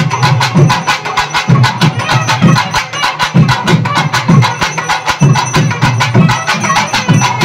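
Loud traditional festival drumming: rapid, even clattering stick strokes, several a second, over deeper drum beats.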